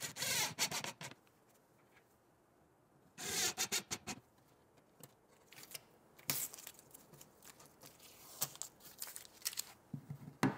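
Faint, intermittent handling sounds. There is a short scraping burst at the start and a tearing rustle a few seconds in as painter's tape is peeled off a plywood panel. Light plastic clicks follow as a cordless-tool battery charger is hung onto screw heads.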